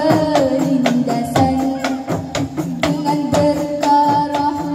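Zamrah music: women singing a melody over hand-held frame drums struck in a steady beat.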